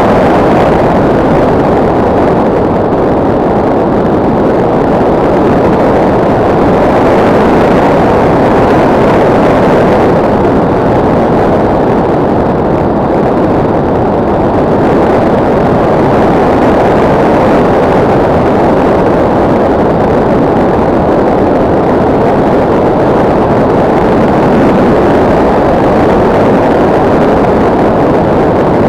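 In-flight noise picked up by the camera on a SkyCruise 2400 RC model plane: a loud, steady rush with no distinct tone.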